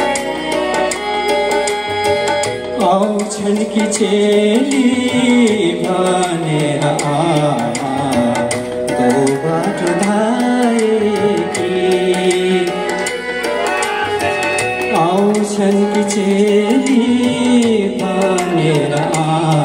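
A man sings a song into a microphone, amplified through a PA loudspeaker, accompanied by a Yamaha electronic keyboard playing chords with a drum rhythm.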